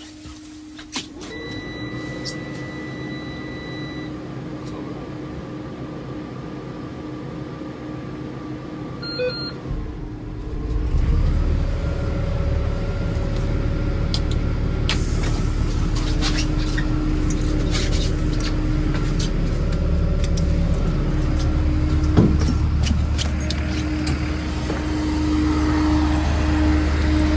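School bus started: a steady dashboard warning tone sounds for about three seconds after the key is turned on, then about ten seconds in the engine is cranked and catches and settles into a steady idle, with a few switch clicks over it.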